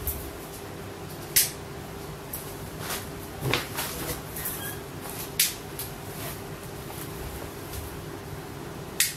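Wall light switches being clicked off: three sharp clicks about four seconds apart, with softer knocks between them over a faint steady hum.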